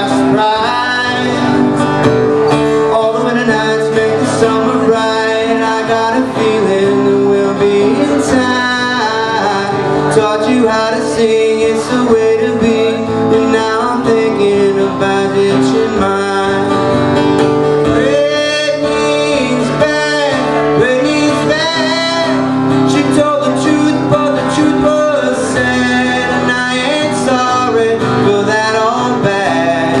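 A man singing live to his own strummed acoustic guitar, in a folk-country style.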